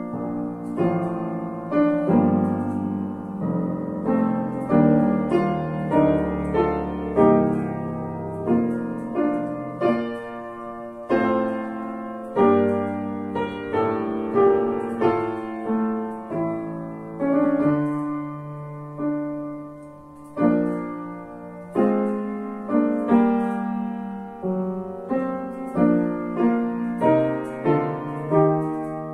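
Grand piano playing a hymn in full chords at a steady, unhurried pace, each chord struck and left to ring into the next.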